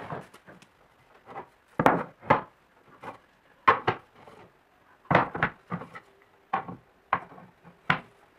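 Hardwood drawer parts knocking and clacking as they are handled, stacked and set down on a plywood workbench: about a dozen sharp wooden knocks at irregular intervals.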